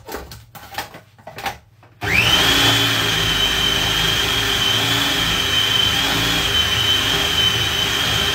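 Small electric food processor motor starting about two seconds in, quickly spinning up to a steady high whine as it mixes soft bun dough after milk has gone in. A few light knocks from the plastic lid being fitted come before it.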